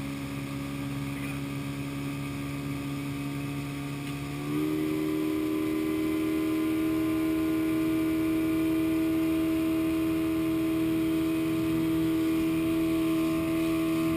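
Johnson outboard motor running steadily while towing a waterskier; about four and a half seconds in, its pitch steps up and it gets louder as it revs higher, then holds steady.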